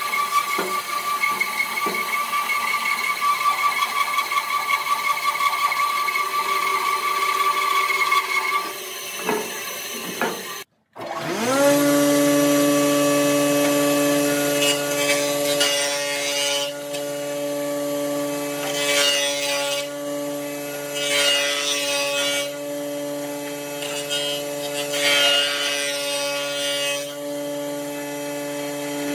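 Bandsaw ripping a natural tree branch lengthwise, its blade cutting with a steady high whine. About halfway through, a jointer's motor spins up to a steady hum, and its cutter head takes several passes along the branch, each a burst of cutting noise over the hum.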